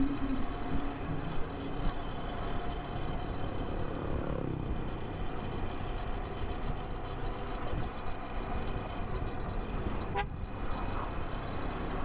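Kawasaki Versys 250 motorcycle running steadily through town traffic, with engine and wind noise, and a vehicle horn tooting.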